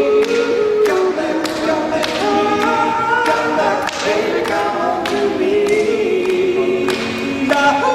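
A cappella vocal group singing a doo-wop song in close harmony, with several voices moving on different pitches over a steady percussive beat.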